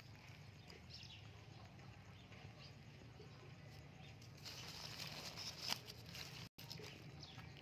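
Faint wet slapping and tapping of live fish shifting against each other and the plastic basket, with a busier flurry of taps a little past the middle.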